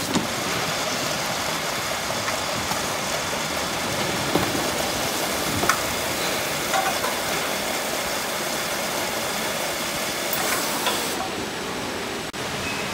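Wraparound case packer and its roller conveyor running: a steady machine din with hiss, and a few short knocks as cardboard cases move along.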